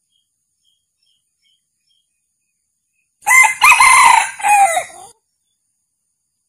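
Male red junglefowl crowing once, about three seconds in. The crow is short, under two seconds, and drops in pitch at its end.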